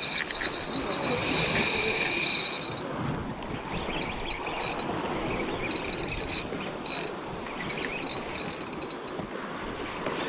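Shimano Stella 8000 spinning reel under a hooked fish's pull. Its drag sings with a steady high whine as line is taken, cutting off about two and a half seconds in. The reel is then cranked under load, whirring and clicking.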